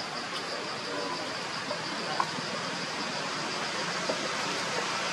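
Steady outdoor background hiss with a high, evenly pulsing buzz, and a couple of faint short clicks partway through.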